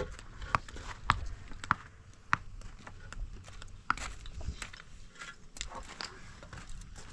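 A series of sharp knocks and taps, about one every half second for the first couple of seconds, then more scattered, over a low rumble.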